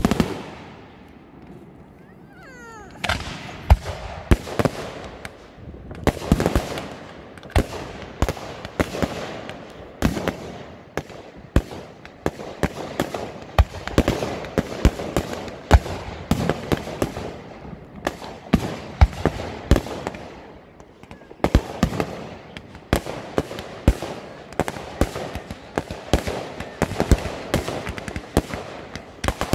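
Fireworks display: aerial shells bursting overhead in rapid, irregular bangs, many close together, with a short whistling glide about two seconds in.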